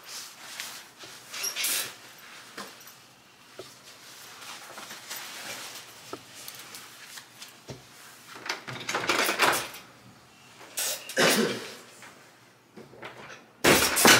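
Movement and handling noises, then a wooden room door opened by its lever handle and shut, with the loudest bang near the end as it closes.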